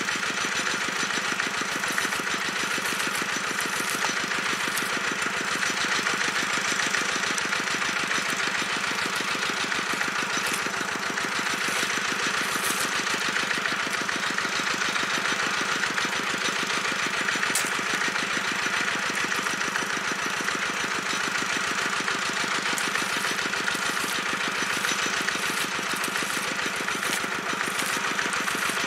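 Small engine driving a pump that draws the water out of the pond, running steadily with a fast, even beat.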